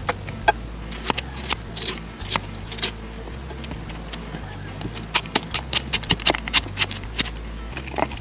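Kitchen knife chopping carrot on a plastic cutting board: a few separate knocks at first, then a quick even run of chops, about four to five a second, from about halfway through.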